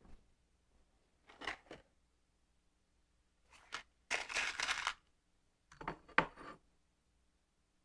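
Intermittent handling noises at a milling machine vise, with brief scrapes and clicks and a short hissing burst a little past the middle, and no spindle running.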